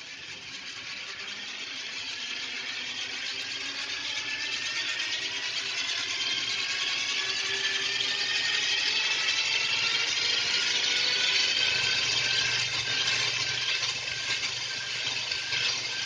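LEGO EV3 wind-turbine model's spinning propellers and gear trains whirring, a whine that rises slowly in pitch and grows louder as they speed up.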